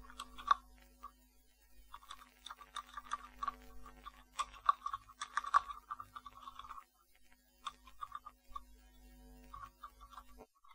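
Computer keyboard typing: irregular runs of soft key clicks, busiest in the first half and sparser later, over a faint steady hum.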